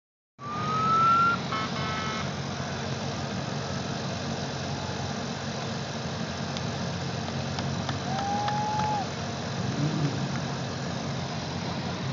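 Engines of a line of drift cars running at slow parade pace behind a pace car, a steady low rumble. A short rising high tone, the loudest sound, comes in the first second, and another brief arched tone about eight seconds in.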